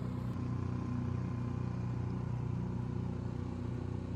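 Small outboard motor of a rented boat running steadily, a loud buzzing.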